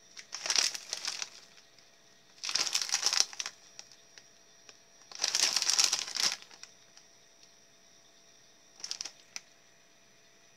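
Plastic snack bag crinkling as hands handle and turn it over, in three long bursts and a brief one near the end.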